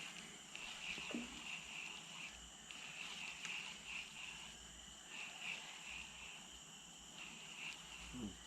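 Faint insect chorus, crickets trilling in short, repeated bursts over a steady thin high hum.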